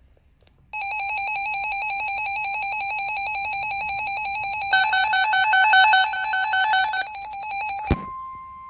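Weather alert radio's electronic alarm warbling in rapid pulses, about ten a second, with a second alarm layered over it for a couple of seconds. It cuts off with a click near the end, and the NOAA Weather Radio's steady 1050 Hz warning alert tone takes over, heralding a severe thunderstorm warning.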